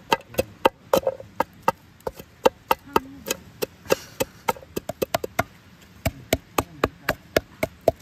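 A stick pounding chopped shallots and garlic in a metal cooking pot, giving sharp knocks against the pot bottom about three or four times a second.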